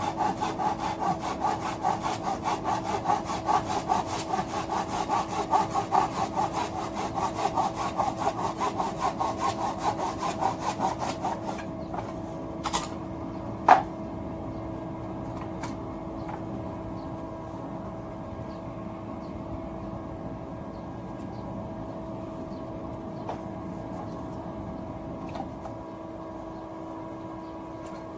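Wood being sawn by hand, about two to three rapid back-and-forth strokes a second, until the sawing stops partway through. A sharp knock follows, then only a steady hum.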